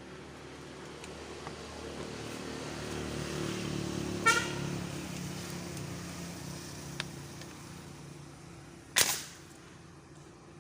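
An airgun fires once about nine seconds in, a sharp crack that is the loudest sound here; the shot misses the fish. Before it, a vehicle engine hum swells and fades in the background, with a short sharp click about four seconds in.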